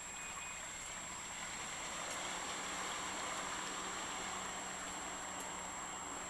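A vehicle passing on the street: a rush of tyre and road noise that swells to its peak about halfway through and then eases off a little.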